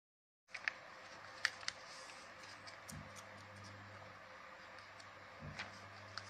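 A sheet of paper being folded by hand into a paper airplane on a hard floor: faint handling hiss with a few sharp clicks and taps as the folds are pressed down. It begins about half a second in.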